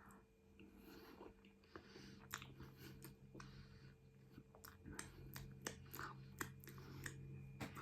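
Faint close-miked chewing: wet mouth clicks and smacks of someone eating, coming more often after about two seconds, over a low steady hum.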